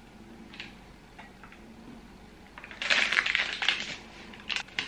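Plastic snack wrapper crinkling loudly for about a second past the middle, with a few faint rustles before it and a couple of short sharp crackles near the end.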